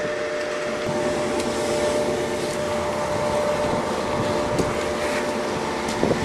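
Red Lion Big Cat cement mixer's electric motor running with a steady hum and whir, with a brief knock near the end.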